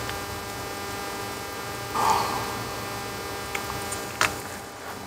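Steady electrical mains hum, with a brief rustle about two seconds in and two small sharp clicks near the end, the second the louder.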